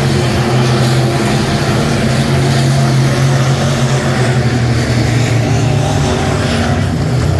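Several USRA B-Modified dirt-track race cars' V8 engines running hard at racing speed, a loud steady drone as the pack passes the grandstand.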